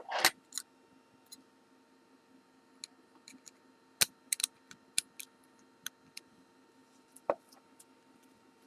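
Small metal tool clicking and scraping against the retaining C-clip of a Kwikset-clone lock cylinder as it is pried at, in scattered sharp clicks with a quick cluster about four to five seconds in.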